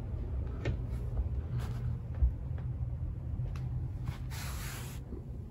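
Quiet indoor room with a low steady hum, a few faint light clicks and a brief soft rustle about four and a half seconds in.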